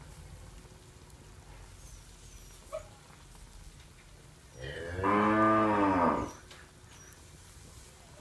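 A cow mooing once: a single long call of about a second and a half that rises and then falls in pitch, a little past the middle.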